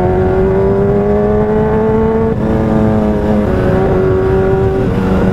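Kawasaki Ninja 1000's inline-four engine running under way on the road. Its pitch climbs slowly, steps down twice, then goes back up near the end.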